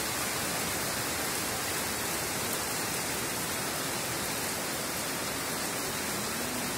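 Heavy downpour: rain pouring steadily onto a flooded road, an even, unbroken hiss.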